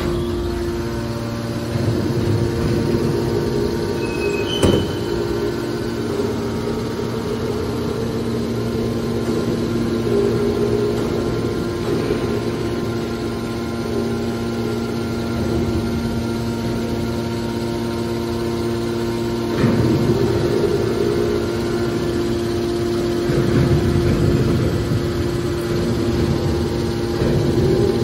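Electric motor and hydraulic pump of a scrap-metal baler running with a steady hum. There is a sharp knock about five seconds in, and stretches of louder rumbling around twenty and twenty-four seconds in.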